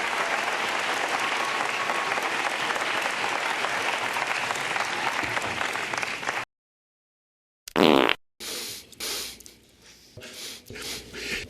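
Audience applauding for about six seconds, cut off suddenly. After a second of silence come one loud, short sniff and a few quieter sniffs picked up close on a microphone.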